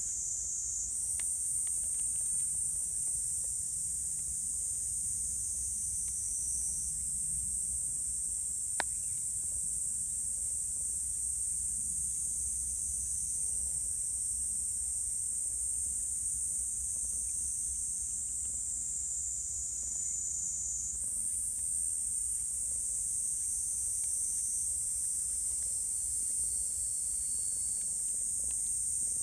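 Cicadas shrilling in a steady, high-pitched chorus that swells and eases a few times, with a single sharp click about nine seconds in.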